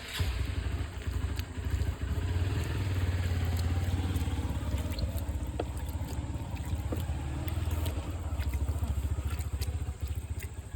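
An engine running steadily with a low, rapidly pulsing sound, dropping away near the end.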